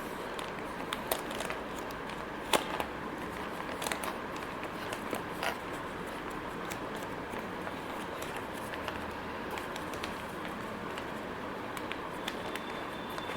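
Scattered light clicks and taps of small objects being handled, over a steady low hiss.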